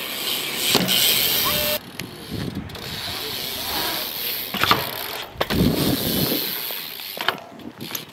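BMX bike riding a concrete skatepark bowl: tyres rolling on the concrete with a low rumble and several sharp knocks of the wheels and frame hitting the coping and landing. Wind on the microphone.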